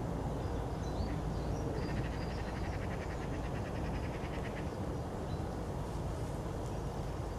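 A rapid rattling animal chatter, about eight pulses a second, lasting roughly three seconds from about two seconds in, over a steady low rumble, with a few faint high bird chirps.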